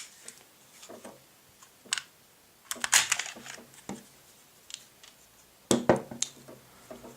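Metal clicks and small rattles of a Glock 17 Gen 1 pistol being field stripped by hand: the slide and small parts click and shift in scattered single clicks and two short clusters, about three seconds in and again near six seconds.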